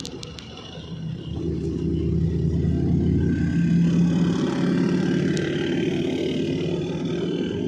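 Engine and road noise of a moving vehicle, heard through an open side window as it drives along; the steady engine hum grows louder about a second in and then holds.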